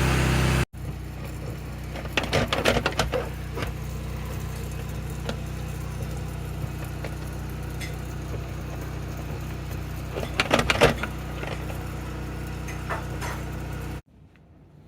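Power washer running with a steady low hum, loud at first and then quieter after a cut, with two bursts of knocking and clatter.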